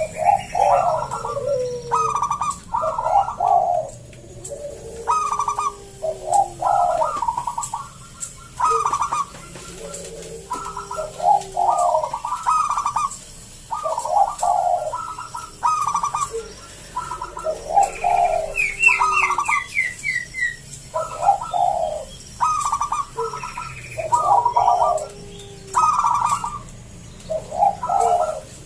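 Zebra dove (perkutut) with a deep, full voice cooing its multi-note song over and over, one phrase every two to three seconds. A quick run of higher chirps from another bird comes about two-thirds of the way through.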